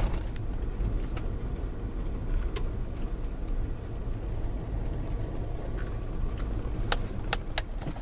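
Road noise heard from inside a vehicle's cab on a dirt road: a steady low engine and tyre rumble, with a few scattered sharp clicks and rattles.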